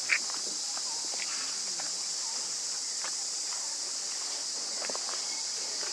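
Steady high-pitched insect chorus, with one brief sharp squeak just after the start and a few faint ticks and rustles later on.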